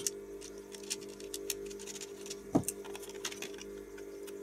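Small metallic clicks and taps as the threaded mounting nut of a mechanical rotary encoder is screwed onto its shaft bushing and tightened against a plastic amplifier front panel, by hand and then with pliers. There is one louder knock about two and a half seconds in.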